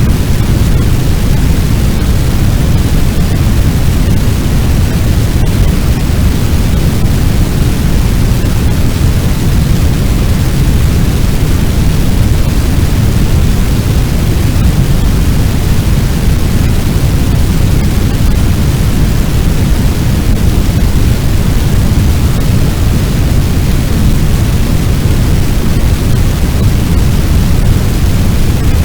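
Fire sound effect: a steady, loud low rumble of noise, heaviest in the bass, unchanging with no crackles or pops standing out, meant as the sound of a large burning building.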